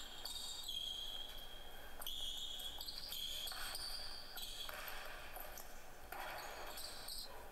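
A basketball dribbled on a hardwood gym floor, with high-pitched sneaker squeaks coming and going.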